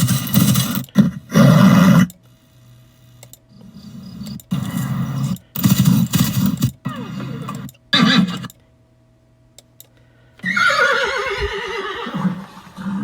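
A horse whinnying: a long, quavering call that falls in pitch, starting about ten seconds in, after several shorter, louder noisy bursts.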